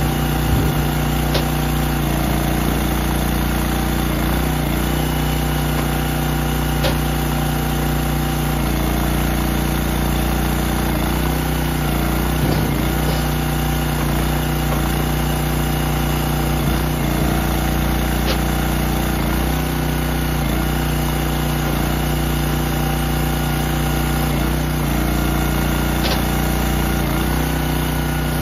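Gas engine of a hydraulic log splitter running steadily, its note shifting every few seconds as the ram splits firewood rounds. A few sharp clicks sound over it.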